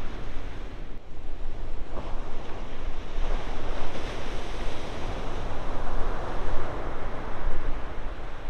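Ocean surf breaking in a steady rush, with wind buffeting the microphone in a low rumble. The rush steps up and grows louder about three seconds in.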